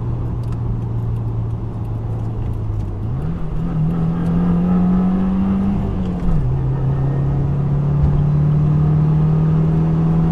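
2015 Subaru WRX's turbocharged flat-four with an Invidia N1 cat-back exhaust, heard from inside the cabin on the move. The engine note climbs as it accelerates about three seconds in, drops sharply about six seconds in, then holds and slowly rises again.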